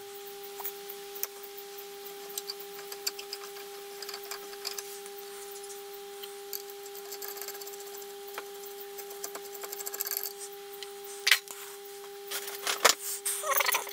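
A hand-turned threading tool working in a Helicoil-repaired bolt hole of a crankshaft oil seal housing held in a vice, with faint scraping and ticking of metal on metal. Near the end come a few louder clinks and rattles as the metal tools are handled.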